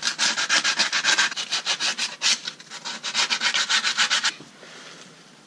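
Sandpaper rubbed by hand on the Jeep transfer case's rear output housing, in fast, even back-and-forth strokes, to clean up the surface for a new output seal. The strokes stop a little over four seconds in.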